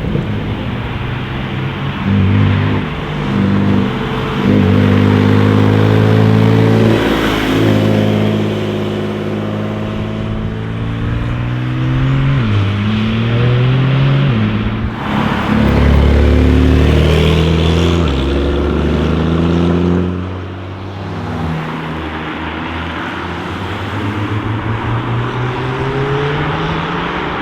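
Porsche 992 Carrera S twin-turbo flat-six accelerating hard through the gears: the pitch climbs in each gear and drops back at each upshift. It eases off about two-thirds of the way through, then builds again near the end.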